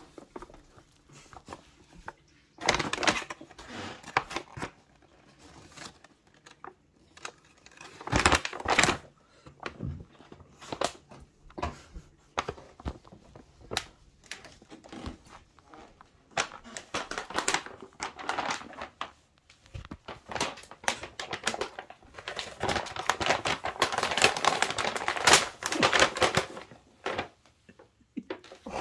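Paper bag rustling and crinkling as a cat shifts about inside it, in irregular bursts with quiet gaps, the longest run near the end.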